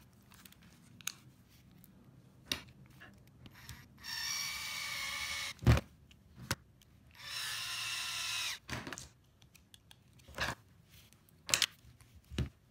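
A small electric motor whirring in two bursts, each about a second and a half long, with a pause between. Sharp clicks and knocks of small hard parts being handled fall around them.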